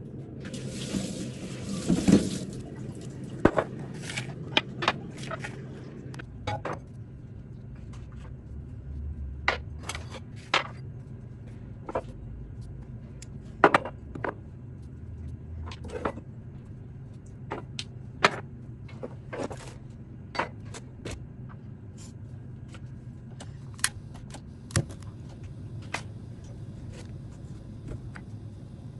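Kitchen handling sounds: scattered sharp clicks and knocks of glass and plastic bottles and small jars being picked up and set down on a counter beside a gas stove, with a brief rustling swish about a second in and a steady low hum underneath.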